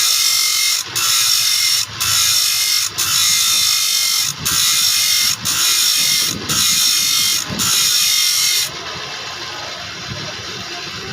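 Saw teeth being sharpened: harsh metal-on-metal scraping in strokes of about a second each, with brief pauses between them. The strokes stop abruptly near the end, leaving a fainter steady hiss.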